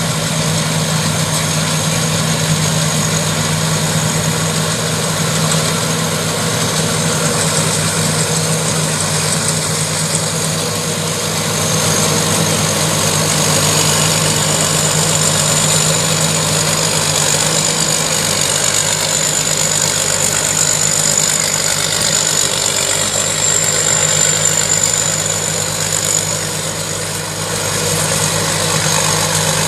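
Combine harvester's diesel engine running steadily, a constant high whine over the engine hum, briefly easing off near the end.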